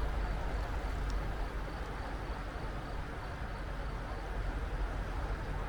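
Mountain stream rushing steadily, with a heavy low rumble under the flow.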